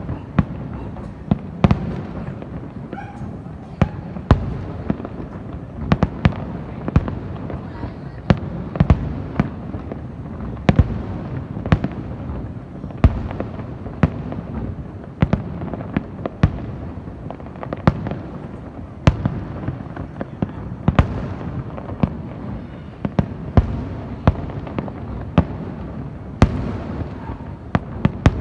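Fireworks display in full swing: a constant run of sharp bangs at irregular intervals, several close together at times, over a continuous low rumble of bursts.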